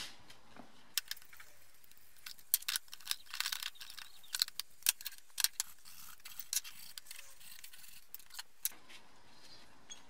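Rusty steel clamp parts handled on a wooden workbench: an irregular run of light metal clicks, knocks and scrapes, busiest in the middle.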